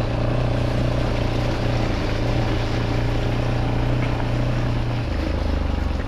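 A vehicle engine running steadily, its pitch dropping to a lower note about five seconds in.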